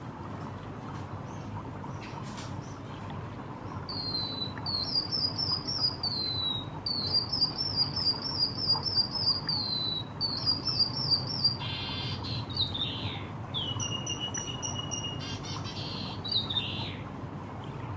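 White-headed munia singing a canary-like song. About four seconds in come runs of quick, high chirping trills lasting some seven seconds, followed by shorter varied phrases that include one held whistled note.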